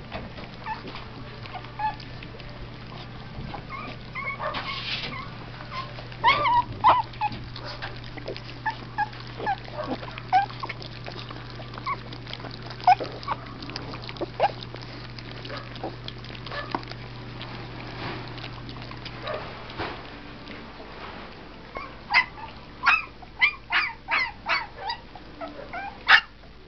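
A litter of Australian Cattle Dog and Texas Heeler puppies whimpering and yipping while they crowd around a pile of dry kibble, with short sharp sounds scattered throughout and a quick run of them near the end.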